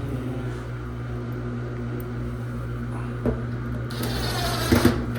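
A steady motor hum with a low, even pitch. A short knock comes about three seconds in, and a louder burst of rattling hiss with a knock comes near the end.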